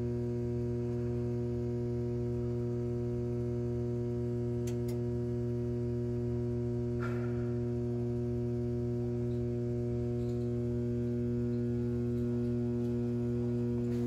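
Steady electrical mains hum from a Simplex fire alarm control panel during system reset: a low buzz with several evenly spaced overtones. A brief faint click about seven seconds in.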